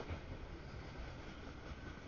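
Freight train cars rolling steadily past a grade crossing: a low, even rumble of wheels on rail.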